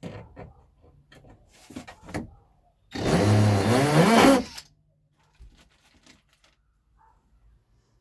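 Power drill driving a small hinge screw into wood, running for about a second and a half with its pitch rising and then falling, after a few knocks and clicks of handling.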